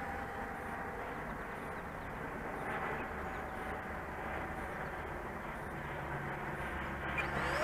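Steady rushing wind and airflow noise picked up by a camera riding on an RC airplane in low flight, with a faint steady tone underneath.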